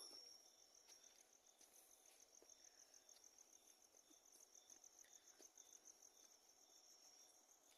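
A cricket chirping: a faint, steady, high-pitched pulsing trill.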